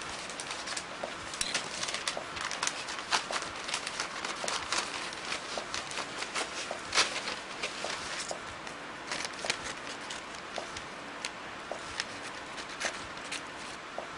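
Dense, irregular crackling and clicking over a steady hiss.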